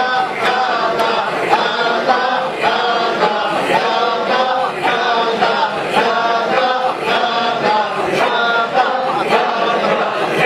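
Men's voices chanting together in a Sufi dhikr circle, a short phrase repeated over and over in a steady rhythm about twice a second.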